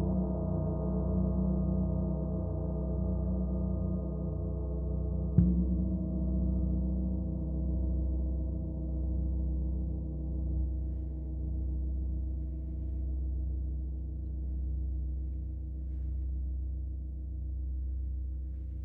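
Bronze gong with a hammered centre, played with a soft mallet, ringing with a deep, bass-heavy tone. It is struck again about five seconds in, and the ringing then swells and fades in slow waves as it sustains.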